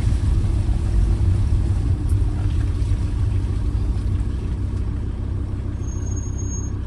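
Campervan engine running steadily at low revs, a constant low rumble heard from inside the cab.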